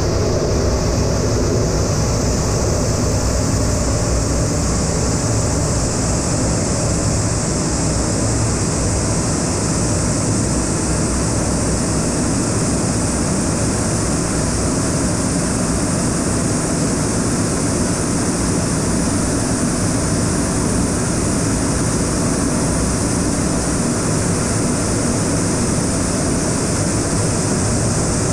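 Twin TF34 turbofan engines of an A-10 Thunderbolt II heard from inside the cockpit, mixed with air rushing past: a steady loud rumble with a strong high hiss, unchanging throughout.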